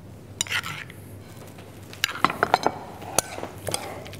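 Spoon stirring a chopped vegetable salad with its dressing in a glass mixing bowl. About halfway through, a run of sharp clinks starts as the spoon strikes the glass, a few of them ringing briefly.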